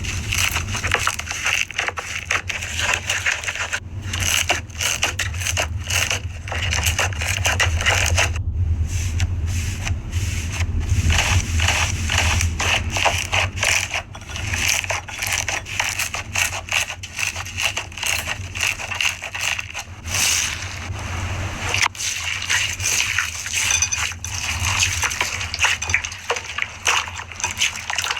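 Slime being squeezed and kneaded by hand, with a dense run of wet squelching, clicking and popping.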